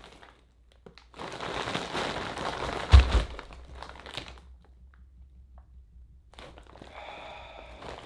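A large clear plastic bag crinkling and rustling as it is gripped and squeezed, with a low thump about three seconds in.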